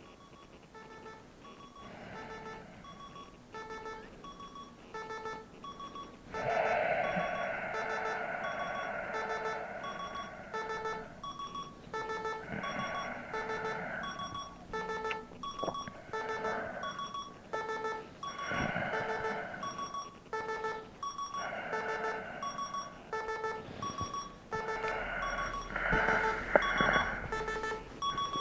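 Digital bedside alarm clock beeping in an even, repeating pattern, just under two beeps a second, growing louder over the first several seconds and then holding steady. Several stretches of rustling noise from the bed lie over the beeps.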